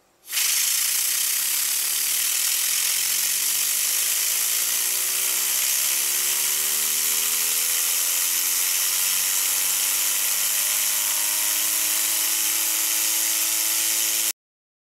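Canned compressed air blasting in a loud, steady hiss onto a fidget spinner, with the spinner's faint whir underneath rising in pitch as it speeds up to about 2200 RPM. The hiss starts abruptly and cuts off suddenly near the end.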